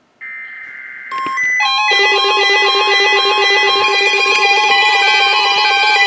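Weather radio receiving its Required Weekly Test alert: a buzzy burst of SAME digital header data starts just after the beginning. From about a second in, a stack of steady electronic alert beeps at several pitches builds up and keeps sounding together with a fast flutter.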